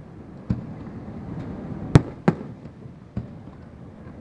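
Aerial fireworks shells bursting: four main sharp bangs, the loudest about two seconds in, with fainter pops between them.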